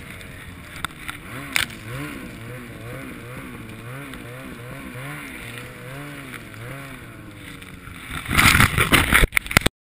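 Snowmobile engine running in deep powder, its pitch rising and falling about once a second as the throttle is worked. Near the end a loud rush of noise takes over, then the sound cuts off suddenly.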